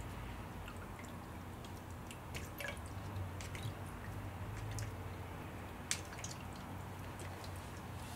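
Water dripping and splashing in irregular little taps as a cat paws at the spout of a stainless-steel pet water fountain, the sharpest splash about six seconds in, over a low steady hum.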